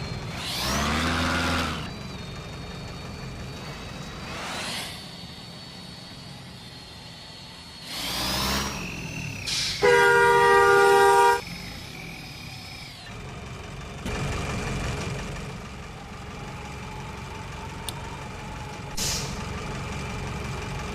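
A tour bus's engine running, with several short hisses of air from the air brakes. About halfway there is one loud, steady blast of a multi-tone basuri 'telolet' horn, lasting about a second and a half.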